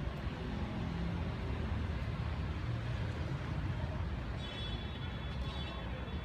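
A vehicle's steady running rumble, with a faint high tone briefly about four seconds in.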